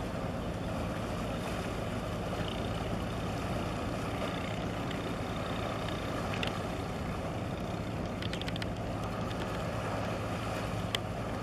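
Steady low hum of ship engines across the harbour water, over an even wash of wind and water noise, with a few faint clicks late on.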